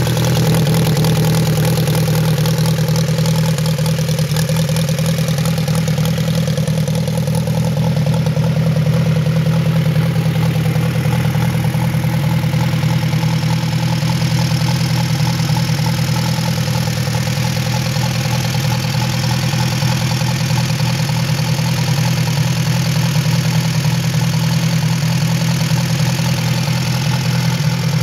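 1928 Henderson Deluxe's inline four-cylinder engine idling steadily, still warming up after a cold start. It is heard close to the open end of the exhaust pipe at first.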